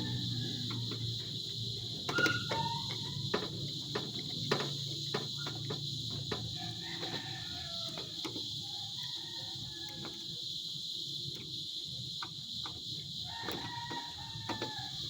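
Steady high insect chirring, like crickets, with scattered sharp clicks and knocks and a few short faint chirps over it.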